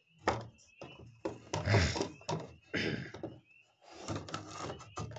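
Handling noises: a run of irregular rustles, scrapes and knocks, the loudest cluster about halfway through, over a faint steady high tone.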